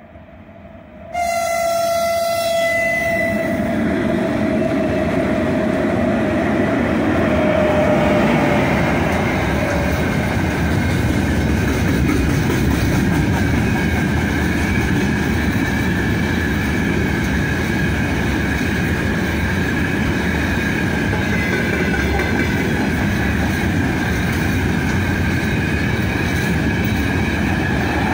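A 4ES5K Ermak electric locomotive sounds its horn about a second in, a sudden loud blast. Then the locomotive and its long freight train of open wagons run past with a steady rumble of wheels on the rails.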